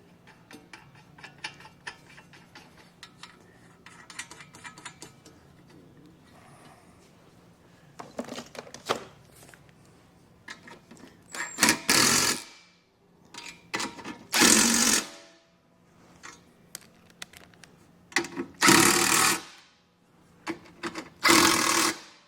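Power tool running in four bursts of about a second each, driving lock nuts down tight, after several seconds of light clicking.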